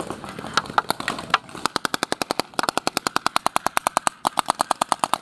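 Paintball markers firing: a few single shots, then two long strings of rapid fire at about ten shots a second, with a short break between them.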